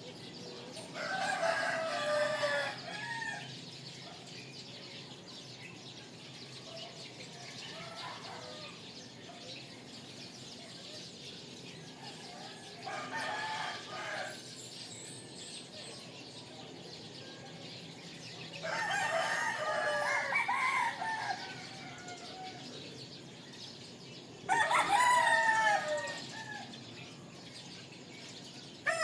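Rooster crowing four times, several seconds apart, the second crow fainter than the others, with small birds chirping faintly in between.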